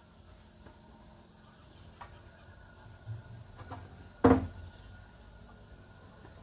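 A few soft knocks, then one loud, sharp knock with a short ringing tail about four seconds in, over faint steady high tones.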